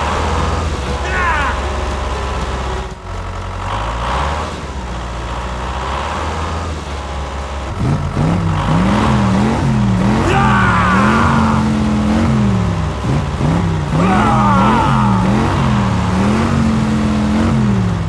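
Simulated engine sound from an RC truck's sound module running and stepping up in revs. About eight seconds in, a repeating up-and-down stepped tone joins it, with two bursts of high chirping squeals.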